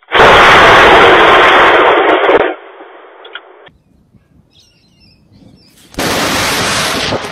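Two loud cracks of thunder from lightning striking very close: the first bursts in just after the start and lasts about two and a half seconds, and the second comes about six seconds in.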